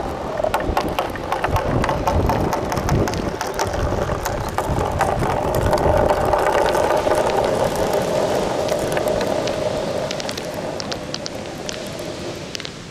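Small balls rolling down a plastic rain-gutter track, a hollow rumble with many clicks and knocks as they bounce along the channel. It fades over the last few seconds as the balls run out onto the sand.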